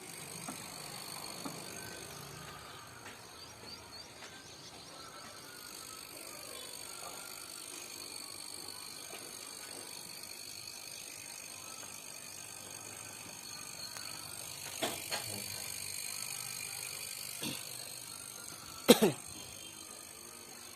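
Vacuum pump running steadily with a high whine as it pulls a vacuum on a car's AC system before the refrigerant charge. A few clicks come late on, then one sharp loud knock near the end.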